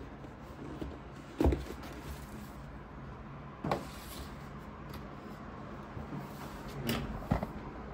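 Cardboard box lid being slid off its inner tray and set aside, with scraping and a few soft knocks of cardboard on the table; the loudest knocks come about a second and a half in and near the end.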